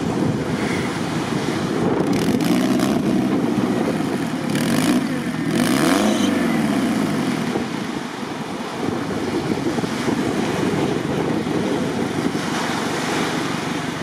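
Suzuki Samurai engine revving hard under load as the 4x4 claws at a deep sand climb with its tyres digging in. The revs rise and fall twice, about two and six seconds in, then settle into a steadier drone.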